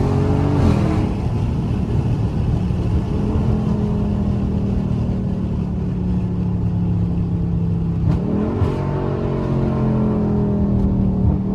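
Dodge Charger Scat Pack's 392 HEMI V8, fitted with a cold air intake, running under way. Its note falls about a second in, holds steady, then climbs sharply about eight seconds in.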